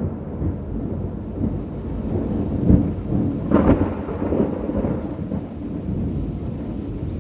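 Thunder rumbling low and continuously over rain, with a sharper, louder crack about three and a half seconds in.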